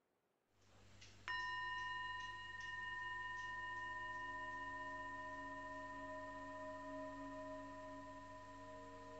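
Relaxation background music: a bell-like tone is struck about a second in and rings on with several high overtones, slowly fading. From about three seconds in it is joined by soft, sustained lower tones over a faint steady hum.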